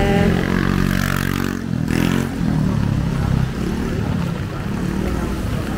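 Motorcycle engines passing on a rain-soaked street, their pitch sliding as they go by, over a steady hiss of rain and wet road.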